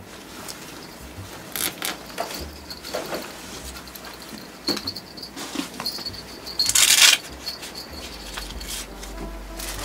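Scattered rustling and light clicks of close handling, with one louder rustle about seven seconds in.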